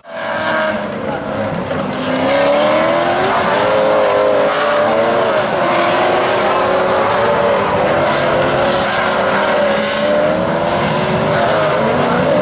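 Maserati GranTurismo race cars' V8 engines running hard through a bend, the engine note rising and falling over and over as the drivers work the throttle through the corner.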